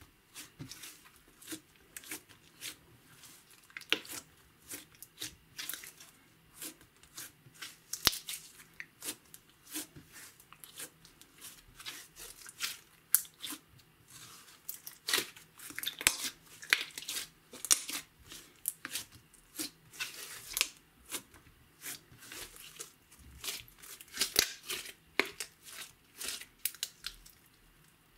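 Hands squeezing, pressing and stretching a sticky clear slime mixed with crushed makeup and glitter, making irregular crackles and small pops as it sticks and pulls apart.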